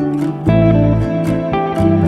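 Background music led by plucked guitar, with a bass line and a steady beat.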